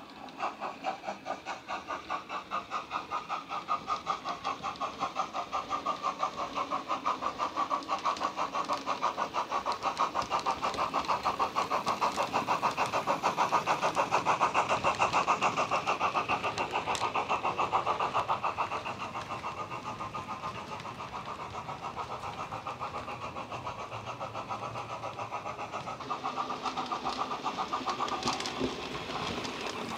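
Model steam locomotive sound from a LokSound 5 decoder and a megabass speaker in the tender of a Bachmann LMS Patriot, playing a three-cylinder LMS sound file. Deep exhaust chuffs start about half a second in and quicken as the loco pulls its train away. They are loudest as it passes close by, then grow quieter.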